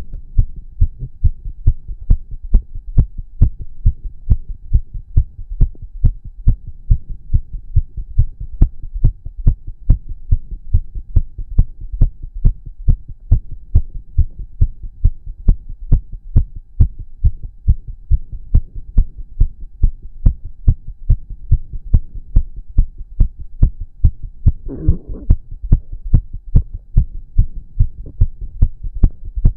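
A man's heartbeat, close and amplified, beating fast and regular after exercise: a steady run of deep thumps, two or three a second. About 25 seconds in, a brief stomach growl rumbles under the beats.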